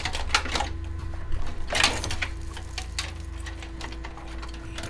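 Clicks, knocks and rattles of hands pulling cables and parts from inside a PC case, with a rustling scrape about two seconds in, over a faint steady hum.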